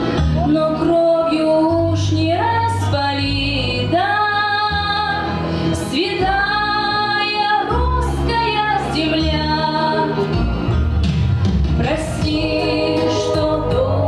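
Woman singing a song over instrumental backing, holding long notes.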